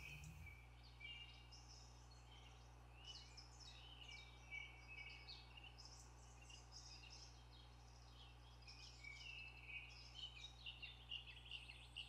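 Birds chirping and calling faintly in woodland, many short scattered calls, over a faint low steady hum; otherwise near silence.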